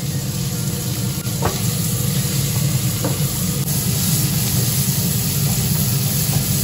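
Onions frying in butter and oil in a pan, sizzling steadily as they are stirred, with two light clicks from the stirring.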